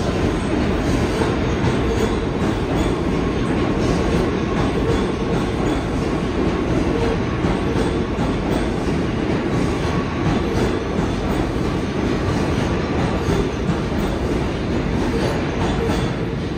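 New York City subway train running past the platform at speed: a loud, steady rumble of wheels on the rails that eases slightly near the end as the last car clears.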